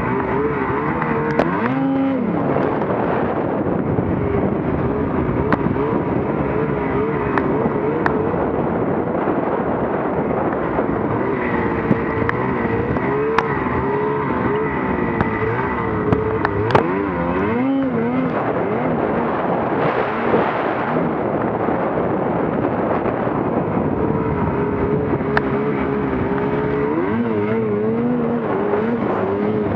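Snowmobile engine running hard while riding, its pitch constantly wavering up and down as the throttle is worked, with a few short clicks.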